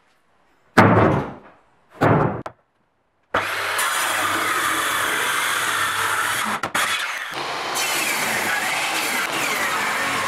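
Two short knocks of wooden boards set down on a workbench. From about three seconds in, a power saw cuts steadily through an old oak slab, with its pitch wavering under load and a brief break near seven seconds: a Makita circular saw ripping along the slab's edge.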